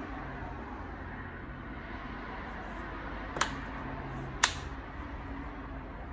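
Two sharp plastic clicks about a second apart, the second louder: the bottom panel of a Lenovo Legion Y540 laptop snapping into its clips as it is pressed shut. A steady background hiss runs under them.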